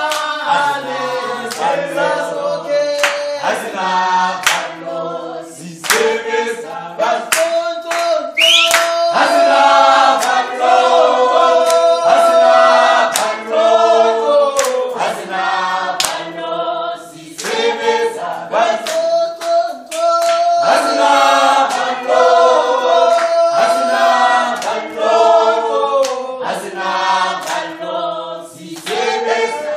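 Group of comrades singing a revolutionary song together, unaccompanied and in several voice parts, with sharp hand claps through it.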